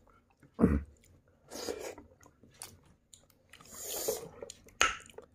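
Chewing and eating sounds of someone eating soft dhido porridge by hand, with a loud thump a little under a second in and a sharp click near the end.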